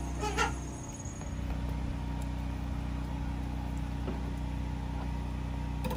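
A steady low mechanical hum, like a motor running, throughout. There is a brief rustle of plastic sheeting about half a second in and a sudden loud bump at the very end.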